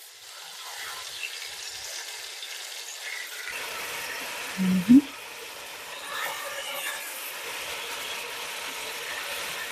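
Boneless, skinless chicken thighs frying in oil and butter in a pot, a steady sizzle that grows a little louder about three and a half seconds in. A short vocal hum cuts in briefly just before the middle.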